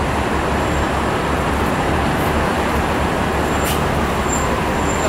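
Loud, steady outdoor background rumble and hiss with no speech, and a faint click a little after halfway.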